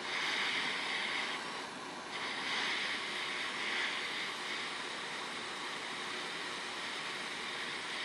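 JBC hot air rework station blowing through its nozzle at 50% airflow and 350 °C, heating a phone's SIM card reader to melt its solder for removal: a steady hiss of air that dips briefly about a second and a half in, then carries on.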